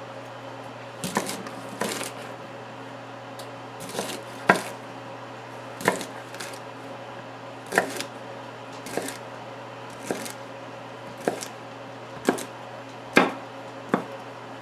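Chef's knife chopping green beans on a wooden cutting board: about a dozen sharp knocks of the blade on the wood, unevenly spaced at roughly one a second, over a steady low hum.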